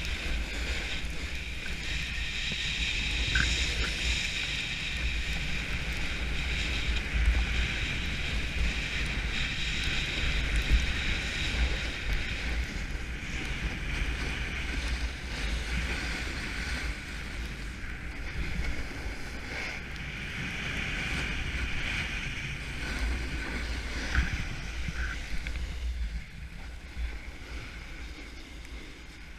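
Snowboard sliding and carving over groomed snow, a steady scraping hiss, with wind buffeting the camera microphone as a low rumble. It gets quieter for the last few seconds.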